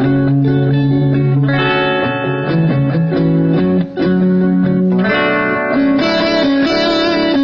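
Guitar played through a Boss DD-7 delay pedal in looper mode: held single notes that change every second or so over sustained background notes. The level dips briefly about four seconds in.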